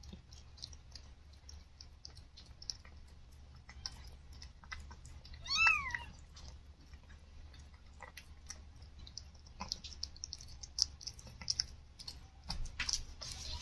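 Siamese mother cat licking and mouthing a newborn kitten, a run of soft wet clicks and smacks that grow busier near the end. One short high mew, rising then falling, comes about halfway through.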